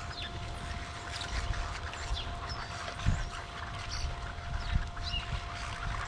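A large flock of blackbird-type birds at backyard feeders calling, with many short scattered chirps and whistles, over a low rumble, a thump about three seconds in, and a faint steady hum.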